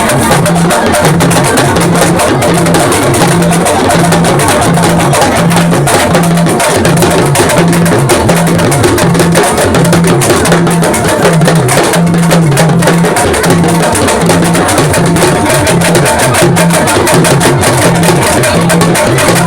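Music driven by drums and percussion, with a low drum note repeating on a steady beat under a dense, busy mix.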